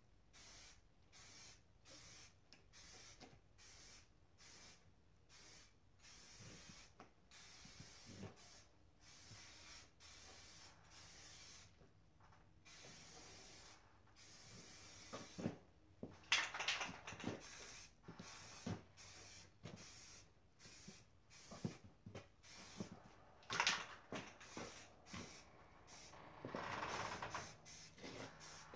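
Aerosol spray-paint can hissing in many short bursts with brief gaps as a coat is sprayed onto a grille. A few louder bursts come in the second half.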